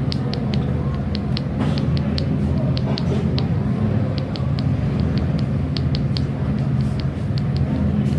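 Chest percussion by hand: a finger tapping on a finger laid flat on the chest, short sharp taps in quick groups of two or three. Under them runs a steady low rumble.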